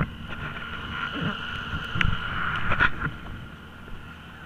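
Handling noise on a helmet camera: knocks and rubbing as a hand grips and moves it, with the loudest knocks about two and three seconds in, over a steady faint high whine. It quietens after about three seconds.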